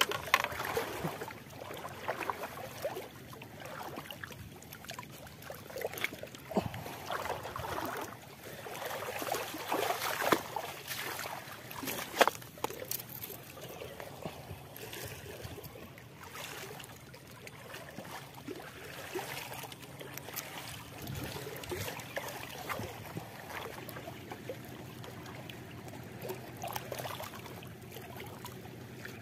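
Small waves lapping and trickling against a bamboo-outrigger boat, with a few light knocks of wood or gear.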